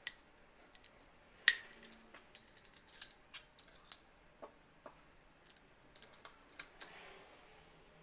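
Irregular sharp clicks and light rattles of a Schletter rail cable clip and cables being handled on a solar racking rail, the sharpest click about a second and a half in.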